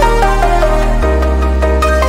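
Electronic background music: held bass notes that change about once a second under a melody of short, stepping notes.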